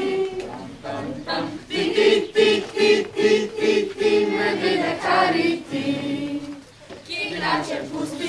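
A group of children and young people singing a song together in short rhythmic phrases.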